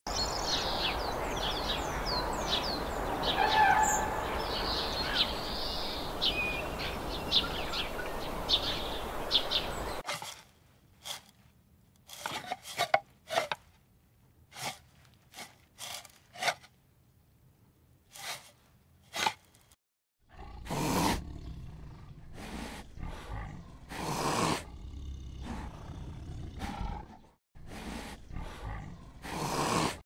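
Birds chirping over steady outdoor noise, which stops about ten seconds in. Then come scattered sharp clicks and knocks, and in the last third a white tiger growls in several loud, low bursts.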